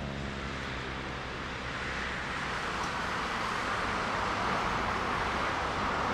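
Airbus A330-300's Rolls-Royce Trent 700 jet engines at taxi power: a steady rushing hiss that grows louder from about two seconds in as the airliner passes.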